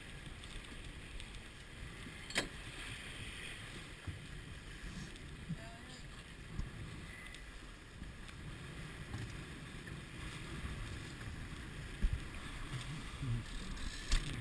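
Steady rush of wind and water around a J30 racing sailboat under sail, with low wind noise on the microphone. A few sharp knocks from the deck gear, the clearest about two and a half seconds in.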